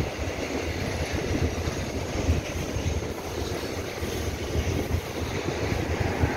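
Loaded container flatcars of a freight train rolling past: a steady rumble with dense clatter of steel wheels on the rails.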